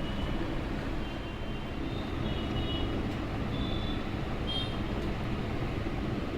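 Steady low rumbling background noise, with a few faint, brief high-pitched tones at scattered moments.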